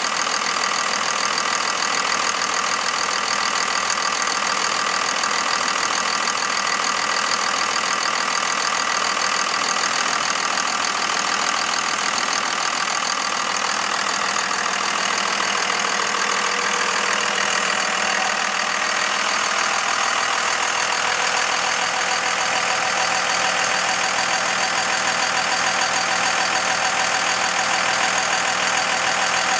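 A 1999 Dodge Ram 3500's 5.9-litre Cummins inline-six turbo diesel idling steadily, with no revving.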